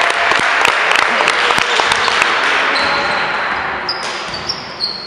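Indoor basketball game: the ball bouncing and players' footsteps on the hardwood court over loud, echoing hall noise. From a little past halfway come several short, high sneaker squeaks on the floor.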